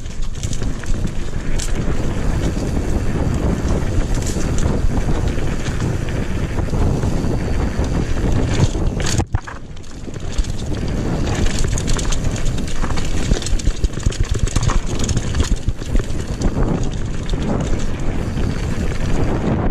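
Mountain bike ridden fast down a dirt singletrack, heard through a GoPro action camera's microphone: wind buffeting the mic over the rumble of the tyres, with frequent rattling clicks from the bike over bumps. The noise drops briefly a little before the middle.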